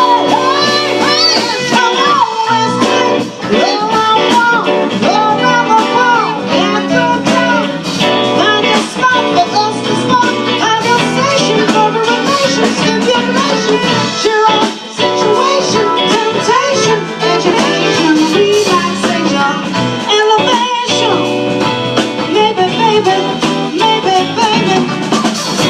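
Live band playing an instrumental passage, a lead melody sliding in pitch over the backing band.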